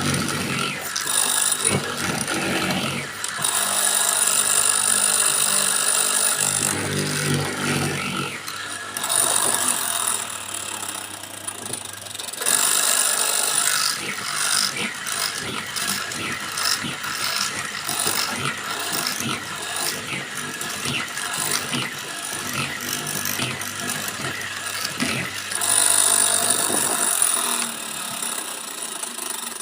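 Homemade mortising machine running and cutting into wood, rattling and knocking, with several louder stretches of high-pitched cutting noise as the bit bites in.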